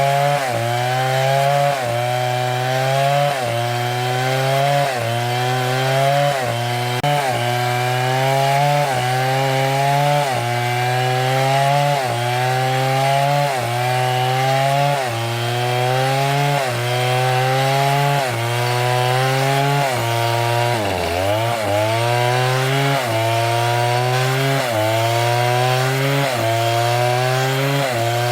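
STIHL two-stroke chainsaw cutting through wood, its engine pitch sagging under load and picking back up about once a second. About 21 seconds in the engine bogs down deeply in the cut before it recovers.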